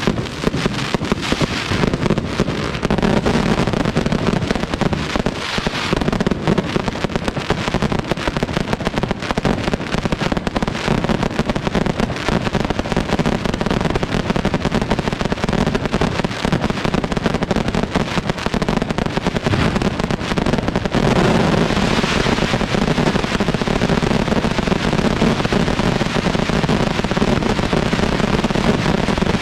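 Fireworks display going off in a dense, unbroken barrage of rapid bangs and crackles.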